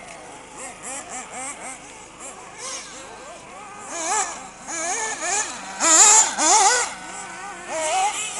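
Several 1/8-scale off-road RC buggies racing, their motors revving hard and constantly rising and falling in pitch through the corners. The motors are loudest as a buggy passes close, about six seconds in.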